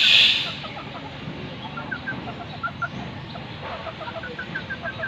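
Bantam chickens clucking in quick runs of short notes, with the longest run near the end. A loud high-pitched buzz cuts off about half a second in.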